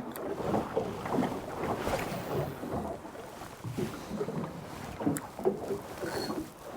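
Water lapping and sloshing against a small boat's hull, with wind on the microphone and a few light knocks, including a sharp click about five seconds in.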